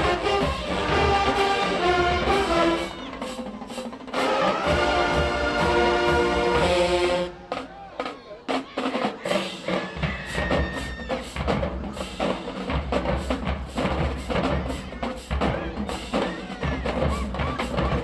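Marching band brass section playing a loud phrase that cuts off sharply about seven seconds in, followed by the drumline playing a rhythmic cadence on snare and bass drums.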